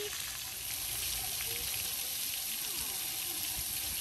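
Steady hiss of water spraying from splash-pad nozzles and arch sprayers onto wet concrete.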